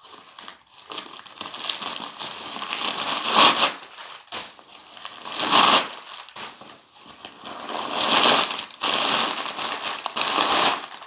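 Crumpled paper stuffing crinkling and rustling as it is pulled out of a small backpack by the handful, with a few louder rushes about two seconds apart.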